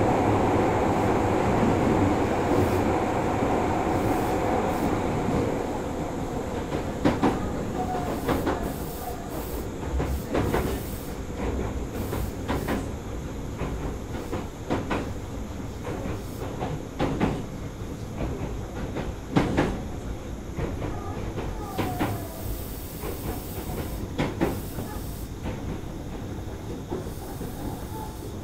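Osaka Municipal Subway 66 series electric train (Mitsubishi IGBT-VVVF car) running on the line, heard from inside the passenger car. A loud rumble over the first few seconds fades to a quieter steady rolling sound, with wheels clicking over rail joints every two seconds or so.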